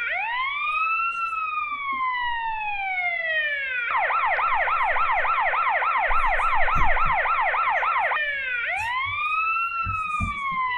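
Australian police car siren: a wail that rises quickly and falls slowly, switching about four seconds in to a fast yelp of about five sweeps a second, then back to the wail near the end. A few low thumps sound under it.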